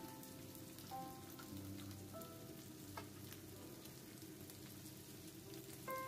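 Tomato slices, onion and pepper sizzling gently in a frying pan: a faint, steady crackle with fine pops. Quiet background music of held notes plays over it.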